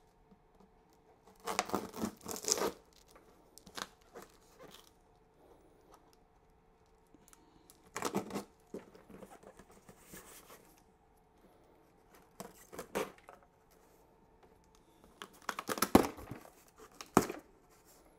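Packing tape on a cardboard parcel being slit with a small keychain blade and the taped flaps pulled apart: several short bursts of tearing tape and rustling cardboard, the loudest near the end.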